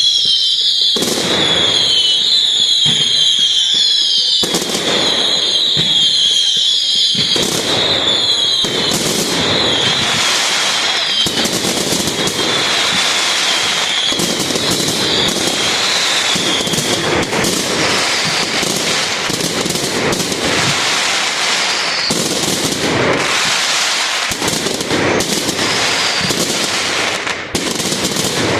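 Firework display: a rapid run of bangs over high-pitched wavering whistles for the first half, then dense crackling mixed with more bangs.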